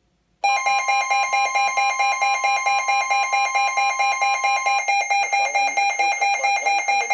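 Weather-radio alert alarm: loud electronic beeping of several tones pulsing several times a second, starting suddenly about half a second in, announcing an incoming NOAA Weather Radio warning.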